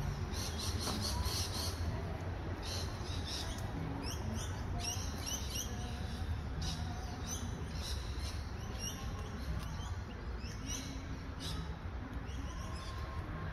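Small birds chirping: short, high chirps repeated in quick clusters, over a steady low rumble.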